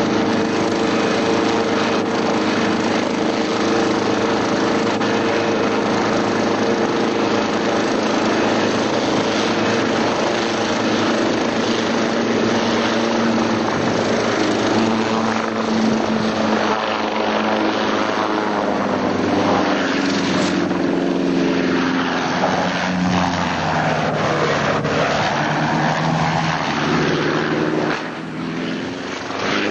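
Helicopter engine and rotor running continuously; in the second half the tone wavers and sweeps as the pitch shifts.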